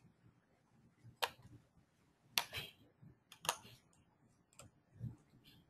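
Three sharp clicks about a second apart, with a few fainter ones between them, from a computer being operated as a slideshow is started.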